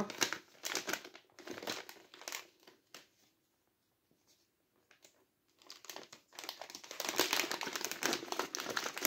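Shiny plastic snack bag crinkling as it is handled: bursts of crinkles in the first few seconds, a pause of about two seconds, then steady crinkling through the last three seconds.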